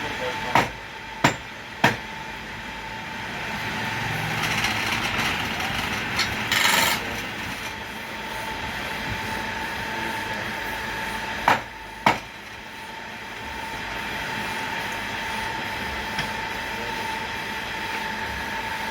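Wood lathe running with a steady hum, a louder stretch of cutting noise about four to seven seconds in, and sharp wooden knocks: three in the first two seconds and two more around twelve seconds in.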